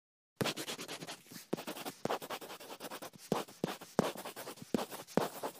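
Quill pen scratching across parchment in a run of quick, irregular strokes, starting about half a second in.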